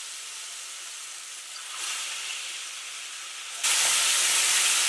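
Beer-battered pike chunks deep-frying in hot oil in a cast iron skillet, a steady high sizzling hiss. About three and a half seconds in, the sizzling jumps sharply louder as more battered fish goes into the oil.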